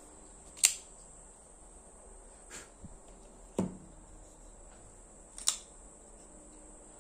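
Dagger Sting XL folding knife being opened and closed by hand, its blade swinging on bearings and snapping into place with four sharp clicks. The third click carries a duller knock.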